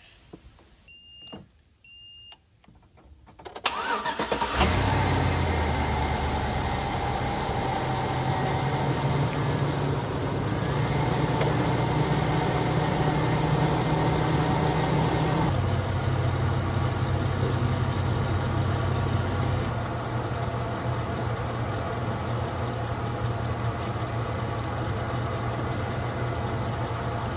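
Two short electronic beeps from a portable jump starter clamped on a flat battery. Then the 2004 Chevy Avalanche's V8 cranks briefly and catches about four seconds in, and keeps running steadily after a cold start off the jump pack.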